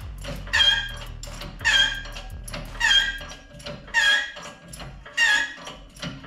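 40-ton air-over-hydraulic shop press under load on a crankshaft part, giving a high squeal that falls in pitch, repeating about once a second.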